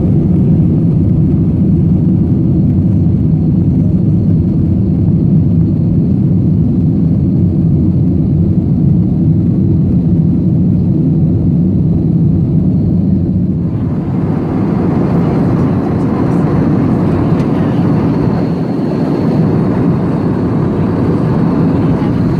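Airbus A321 jet engines and airflow heard from inside the cabin during takeoff and initial climb: a loud, steady low rumble. About two-thirds of the way through it changes abruptly to a broader, hissier steady cabin noise of the airliner at cruise.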